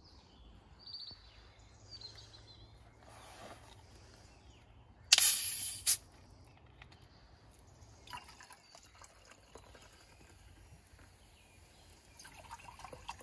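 A plastic bottle of cola is unscrewed about five seconds in, and the carbonation gas escapes in a loud hiss lasting about a second. Near the end the cola is poured into a metal mug.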